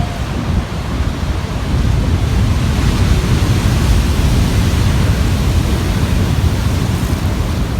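Ocean surf breaking and rumbling on the beach, a steady deep roar that builds from about two seconds in, with wind on the microphone.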